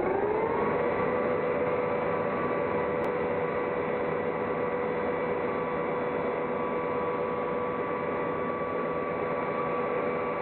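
Electric motor of a woodworking power tool finishing its spin-up in the first second, its hum rising in pitch, then running steadily with no cutting load.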